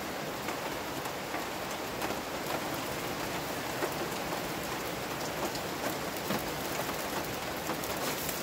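Heavy rain falling steadily: an even hiss with scattered light ticks.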